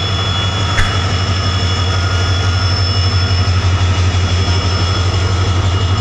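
WDP4D diesel-electric locomotive's EMD 16-cylinder two-stroke diesel engine running as the locomotive rolls slowly past close by: a steady deep drone with a steady high whine above it.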